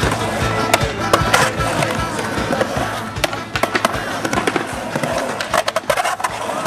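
Skateboard rolling through a concrete bowl, its wheels rumbling with repeated sharp clacks and knocks from the board, with music playing underneath.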